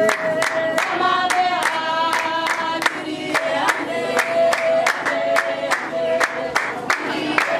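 A group of Basarwa (San) women singing a dance song together, with sharp, steady hand claps about three a second keeping the beat.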